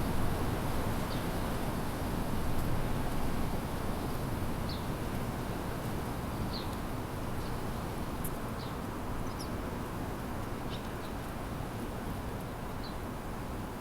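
Small birds giving short, high chirps every second or so, over a steady low rumble of city traffic.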